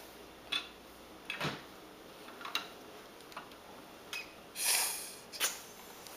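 A few light clicks and knocks from handling a small plastic toy car fitted with a straw, then breath blown hard through the drinking straw to inflate a small balloon: one longer puff about four and a half seconds in and a short one after it.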